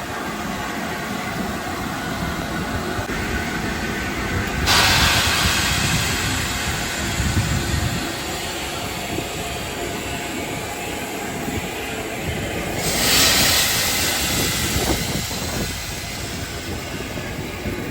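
Heritage steam locomotive standing with a steady low rumble, and steam hissing out in two sudden surges, about five seconds in and again about thirteen seconds in, each dying away over a few seconds.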